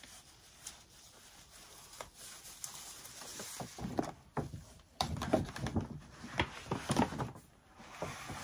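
Large paper shopping bag being handled: its ribbon is untied from the rope handles and the bag and the box inside are shifted. The sound is rustling and crinkling with scattered knocks and clicks, busiest and loudest in the second half.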